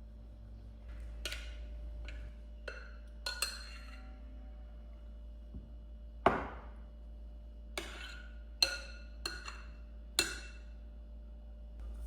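Dishes and utensils clinking and knocking: about a dozen light, irregular strikes, some with a short ringing note. The sharpest comes about six seconds in.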